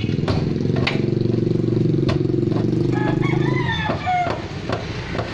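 An engine running steadily, easing off about four seconds in, with sharp knocks over it.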